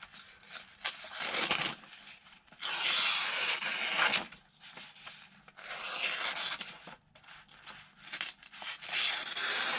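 D2 steel blade of a CJRB Centros folding knife slicing through paper: several long hissing cutting strokes of about a second each, with short pauses between them.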